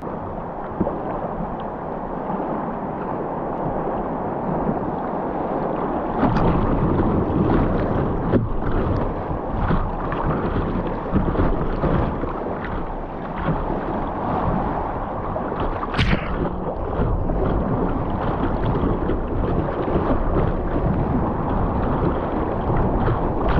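Whitewater rushing and splashing around a kayak's bow as it runs a rapid. The water gets louder about six seconds in, with many short splashes and one sharp splash about two-thirds of the way through.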